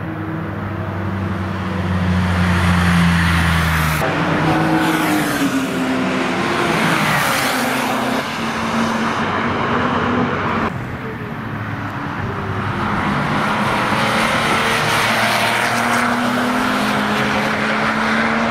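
Air-cooled flat-six of a 1971 Porsche 911 with a straight-piped exhaust, driving past under load, its note rising and falling as it accelerates and lifts off. The sound changes abruptly about four seconds in and again near eleven seconds.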